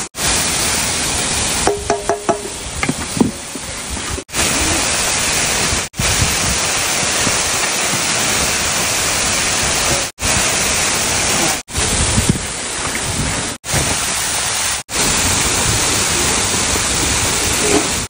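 Steady rush of a waterfall's falling water, broken by several sudden brief silent gaps. A few light metallic clinks sound about two seconds in.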